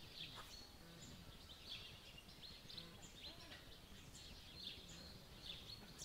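Faint birdsong: many short, quick chirps from small birds, repeating throughout, over a low steady rumble.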